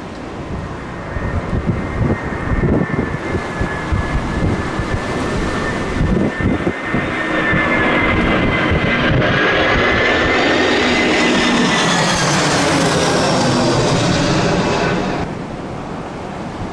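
Airliner engines passing close on approach, a whine growing louder to a peak and then cutting off abruptly near the end. Strong gusty wind buffets the microphone underneath.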